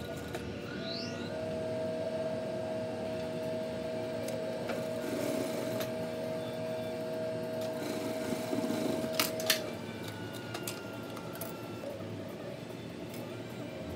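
Juki industrial sewing machine stitching a neckband onto a knit T-shirt: it runs steadily with a constant hum for several seconds. It stops about two-thirds of the way through with a couple of sharp clicks.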